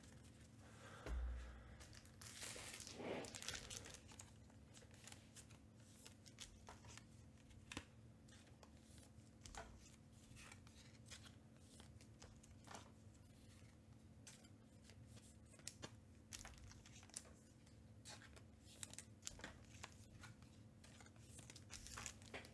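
Faint rustling and crinkling of trading cards and pack wrappers being handled, with scattered light clicks and a soft thump about a second in, over a faint steady hum.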